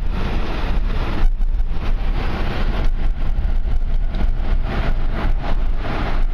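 Steady rumble of a vehicle driving along, with engine and tyre noise heard from inside the cab.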